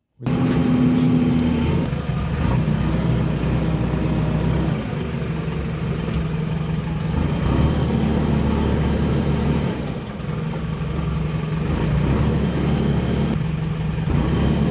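JCB backhoe loader's diesel engine running loud and steady, cutting in suddenly at the start, its level dipping and rising again a few times.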